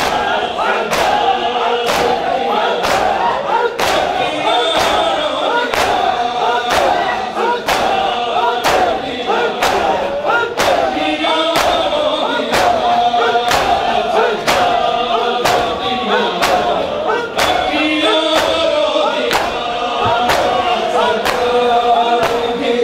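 Noha chanted by a crowd of men, with the sharp, even slaps of matam: many men striking their bare chests in unison, about three strikes every two seconds.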